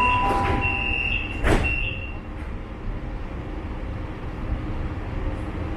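Shanghai Metro Line 10 train's door-closing warning: repeated beeping until about 2 s in, with the sliding doors shutting with a thump about a second and a half in. Then the steady low rumble of the metro car.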